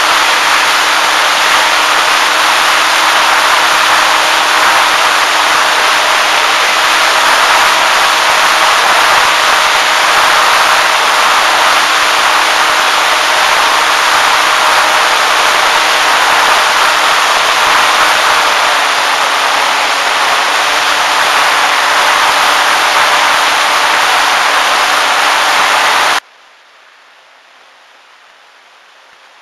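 Onboard sound of an E-flite Timber RC plane in flight: a loud, steady rush of air noise over the camera, with the electric motor and propeller humming steadily beneath it. About 26 seconds in the sound cuts off suddenly to a faint hiss.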